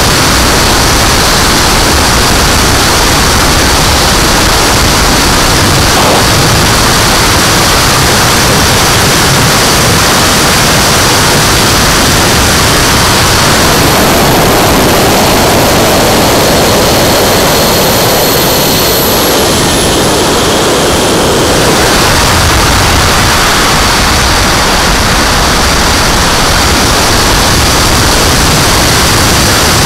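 Steady loud wind rush over an onboard camera on a turbine-powered RC jet in high-speed flight. A thin high turbine whine comes through for several seconds around the middle and falls in pitch as it fades.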